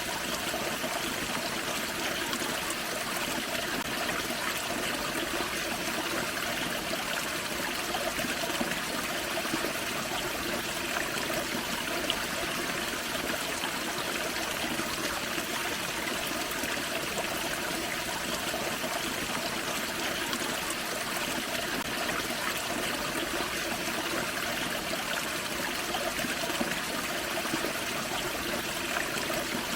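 Small forest creek running over a small waterfall: a steady, even rush and trickle of water.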